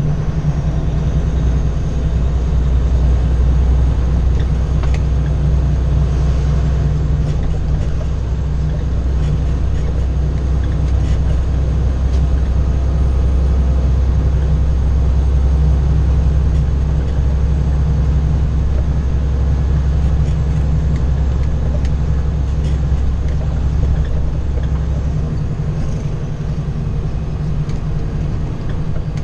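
Cummins ISX diesel of a 2012 Kenworth W900L heard from inside the cab while the truck drives along, a steady deep engine drone with road noise. The deepest part of the drone drops away near the end.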